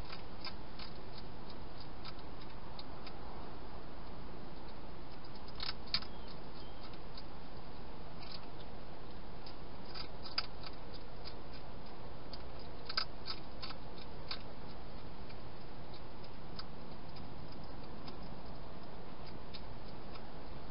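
Wild hedgehog crunching dry food: irregular sharp clicks, some in quick clusters and a few louder, over a steady hiss.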